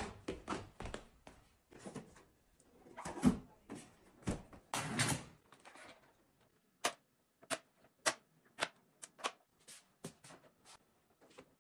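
Hard plastic parts of a tiered plastic shoe rack knocking and clicking as it is handled and set in place: a cluster of knocks with a couple of heavier thuds in the first half, then a string of separate sharp clicks about twice a second.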